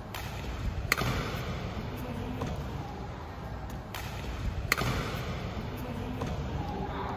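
Badminton racket hitting a shuttlecock: a sharp crack about a second in and a fainter hit later, echoing in the hall. The same pair of hits is heard again about four seconds later.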